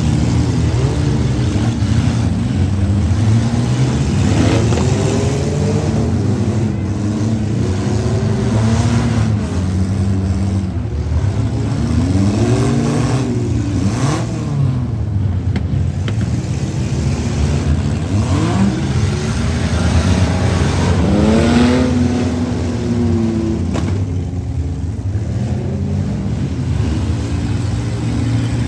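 Several demolition derby car engines running hard at once, revving up and down in repeated rising and falling sweeps.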